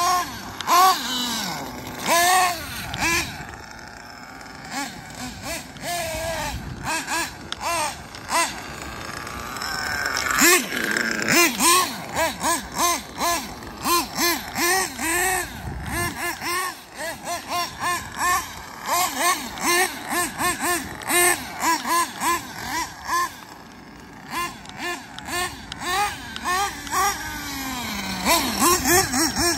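The small two-stroke nitro engine of a Kyosho Inferno NEO ST 3.0 RC truggy, revving in quick repeated throttle blips, its pitch rising and falling as the car accelerates and slows. There is a longer, higher run about ten seconds in.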